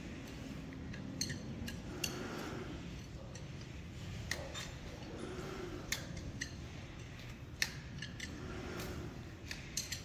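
Hoof knife paring the horn of a calf's hoof during hoof trimming: irregular sharp clicks and scrapes of the blade, about one every second or two.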